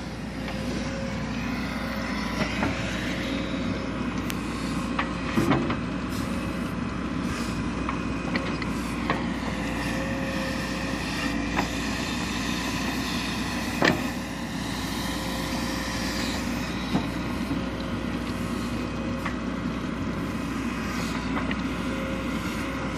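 Hidromek backhoe loader's diesel engine running steadily under digging work, with a few sharp clanks from the bucket and arm, the loudest about five and fourteen seconds in.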